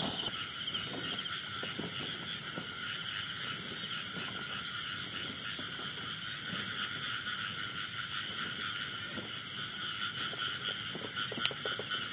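Steady night chorus of frogs and insects, with faint rustling of steps through grass and one sharp click near the end.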